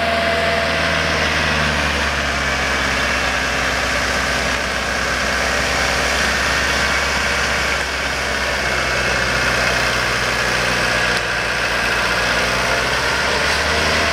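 McCormick tractor's engine running steadily, driving a tractor-mounted snowblower that is throwing snow.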